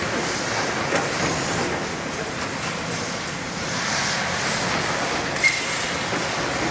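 Demolition excavators working through scrap iron and debris: steady diesel and hydraulic noise with metal scraping and clattering, and one sharp clank about five and a half seconds in.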